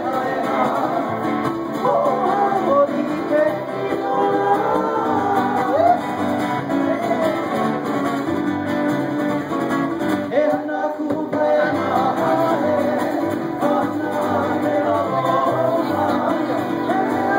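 Live band performing a song: singing over strummed acoustic guitar and a plucked upright bass.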